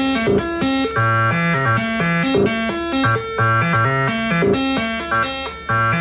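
Make Noise 0-Coast synthesizer playing an arpeggiated pattern of short notes that step up and down several times a second over low bass notes, sequenced by a Midicake ARP arpeggiator.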